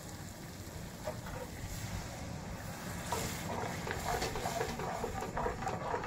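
Milk going into hot cooked masala in a steel kadai and a steel ladle stirring it through, over a steady low rumble.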